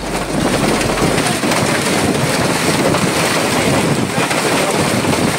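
Heavy rain pouring down on a city street, with wind buffeting the microphone: a steady, even noise with no break.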